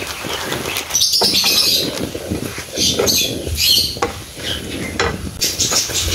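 Shrimp simmering in sauce in a frying pan on a gas burner, stirred with a wooden spatula that scrapes and knocks against the pan, with bird chirps over it.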